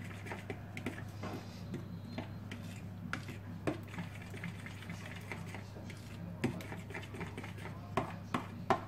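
A spoon clicking and scraping against a bowl as a thick, creamy sauce is stirred, several irregular ticks a second with a few louder knocks near the end. A steady low hum runs underneath.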